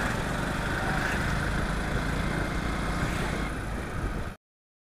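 Steady traffic and road noise heard from a moving motorcycle, with engines running; the sound cuts off abruptly about four seconds in.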